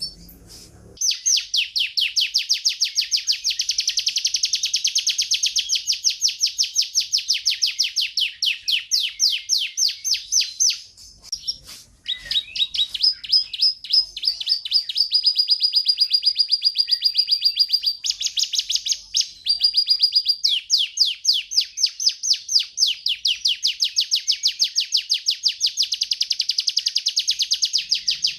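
Domestic canary singing: long rolling trills of very fast repeated notes, with a brief pause partway through and a sustained high whistled note in the middle.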